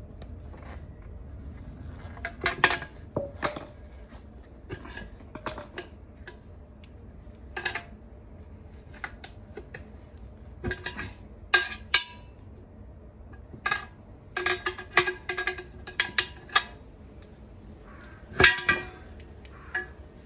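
Irregular metallic clinks and clanks, some with a brief ring, as an 18-inch aluminium alloy wheel is worked out of its tire by hand, its bead just freed.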